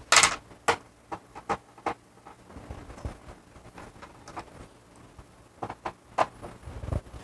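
A long screwdriver clicking and knocking against screws and the plastic board housing of a washing machine's top panel as the screws are undone. A string of sharp clicks, the loudest right at the start, then scattered ones.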